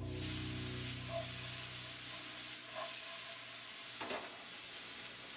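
Food sizzling in a frying pan on an electric stove, a steady hiss, with a brief knock of a utensil against the pan about four seconds in.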